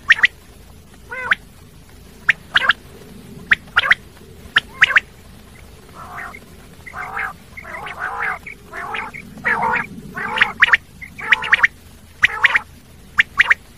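Common quail calling: short, sharp, high calls, often in twos and threes. A denser run of lower, rougher calls comes in the middle.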